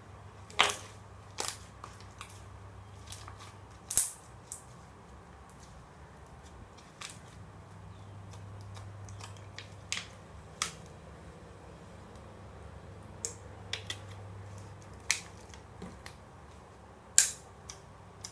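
Clear homemade water slime being squeezed and poked, giving irregular sharp wet pops and clicks as air pockets in it burst, a dozen or so with uneven gaps, a few much louder than the rest.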